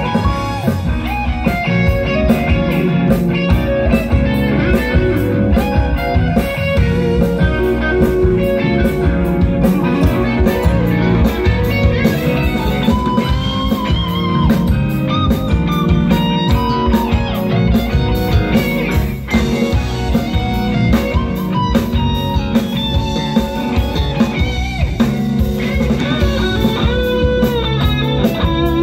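Live rock band playing: electric guitars, bass guitar, keyboard and drum kit, loud and continuous.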